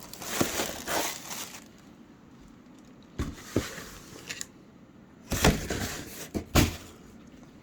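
Unboxing a graphics card: cardboard and plastic packaging rustling and crinkling in several bursts, with a few short knocks in between.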